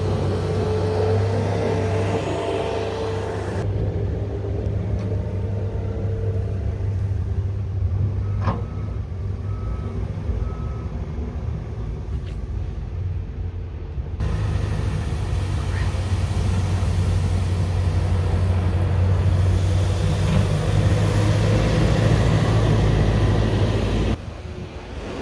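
Diesel engines of a skid-steer loader and a backhoe loader running steadily while they clear snow, the sound shifting in level at a few abrupt cuts.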